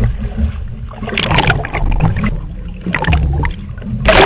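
Sailing dinghy hull rushing through choppy water in strong wind, with wind buffeting the deck-mounted microphone as a constant low rumble. Spray and water splash against the boat about a second in, again around three seconds, and loudest near the end.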